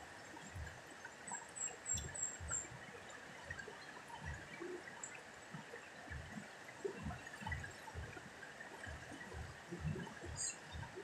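Fast-flowing muddy river rushing past a rocky bank: a steady wash of water with irregular low rumbles through it.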